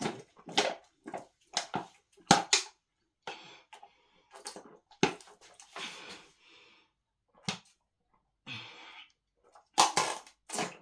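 A person drinking water in gulps, with irregular swallowing sounds and breaths between them.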